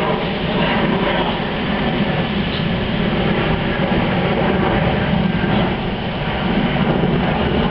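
A G-scale garden-railway train running on the metal track: a steady rolling rumble with no clear beat.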